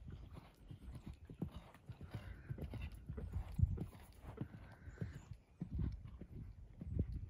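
Horse's hoofbeats thudding on a dirt arena surface at a canter, in an uneven rhythm with a few heavier thuds.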